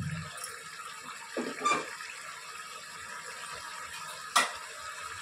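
Cooking pot on the stove giving a faint steady hiss, with a soft knock about a second and a half in and a single sharp metal clink near the end.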